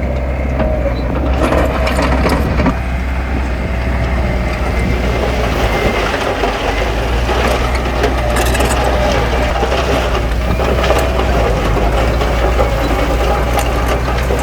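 Diesel engine of a heavy earthmoving machine running steadily under work, with scattered crunching and cracking of stone and earth being moved.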